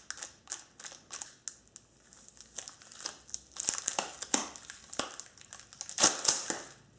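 Cardboard door-frame model held together with clear tape, flexed and shaken by hand: a run of short crinkling, crackling bursts of cardboard and tape, quicker in the middle, with the loudest burst about six seconds in.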